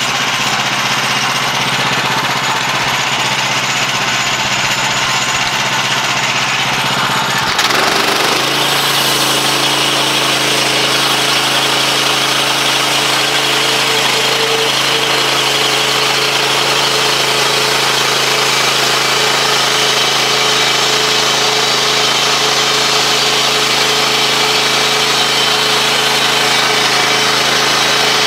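Woodland Mills HM126 bandsaw mill running, its gas engine and band blade working steadily as the head is pushed along the log through a cut. About eight seconds in the sound shifts and grows a little louder and hissier, then holds steady.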